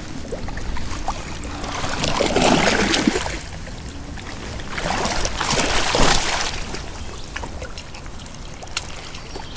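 Shallow creek water splashing and sloshing, with two louder splashy surges about two and five seconds in.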